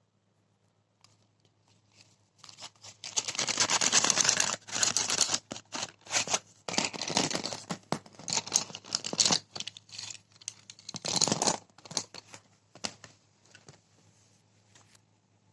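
Stationery packaging being torn open and crinkled by hand, in irregular rustling bursts with sharp clicks. It starts a couple of seconds in and dies away near the end.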